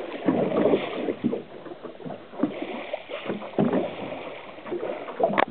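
Small waves lapping and slapping against a boat's hull in irregular splashes, with a sharper splash near the end.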